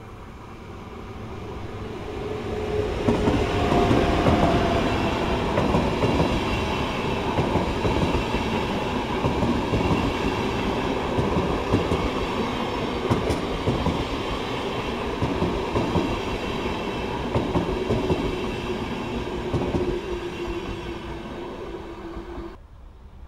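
ÖBB electric locomotive hauling double-deck passenger coaches passing close by, growing louder over the first few seconds into a steady rumble with wheels clattering over the rails and a faint steady tone above it. The sound cuts off suddenly near the end.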